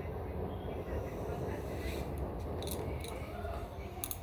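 A few short, sharp clicks or taps, about two, two and a half, three and four seconds in, over a steady low background hum.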